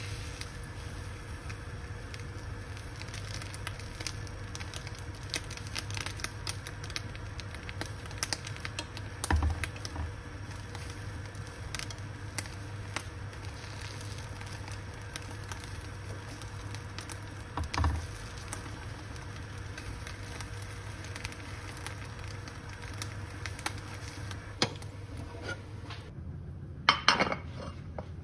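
Egg and eggplant slices frying in a nonstick pan: scattered sizzling crackles and pops over a steady low hum, with two dull knocks along the way. Near the end a ceramic plate clinks a few times on a countertop.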